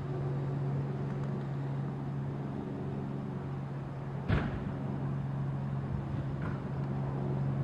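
Steady low-pitched machine hum, with a single sharp click a little over four seconds in.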